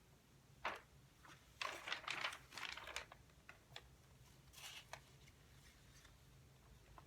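Faint desk-work sounds while studying: scattered soft clicks and brief rustles, busiest from about a second and a half to three seconds in.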